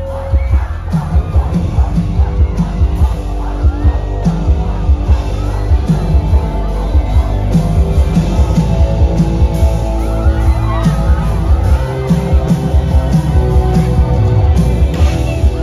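Loud amplified music with singing over a heavy, steady bass beat, heard from within a crowd, with shouts and whoops rising above it.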